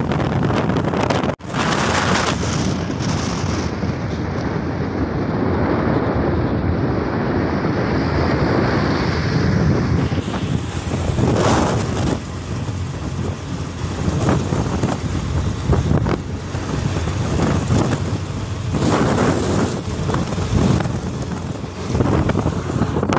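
Wind buffeting the microphone of a motorcycle riding at highway speed, with the rush of the bike and road underneath. The sound drops out for an instant about a second in.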